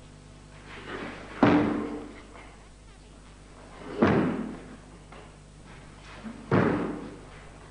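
Bare feet stamping down hard on a wooden floor three times, about two and a half seconds apart, each stamp preceded by the swish of the cotton gi and followed by a short echo: the stamping steps (fumikomi) of the Heian Sandan karate kata.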